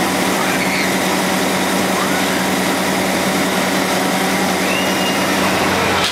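Carnival ride machinery running with a steady engine-like hum, under a wash of crowd voices.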